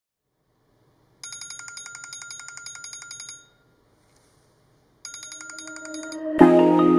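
iPhone alarm ringing: a fast run of high, evenly repeating beeps that stops a few seconds in and starts again about five seconds in. Near the end, music cuts in loudly with a sharp hit.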